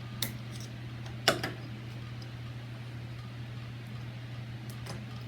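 Handling of deadbolt lock parts: a sharp click just after the start and a louder knock about a second in, then a few faint ticks near the end, over a steady low hum.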